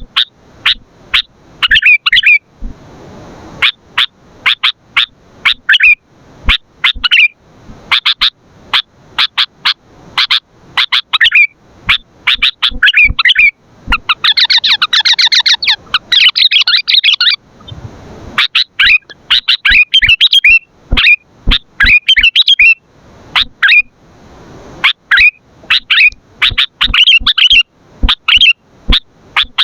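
Sooty-headed bulbul (kutilang) calling over and over in short, sharp chirping notes, about two a second. About halfway through there is a dense burst of rapid chattering.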